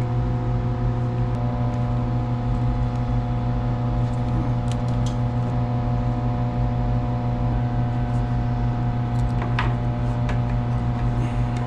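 Steady machinery hum made of several fixed tones, deepest and loudest at the low end, with a few light clicks about five seconds in and again near the end.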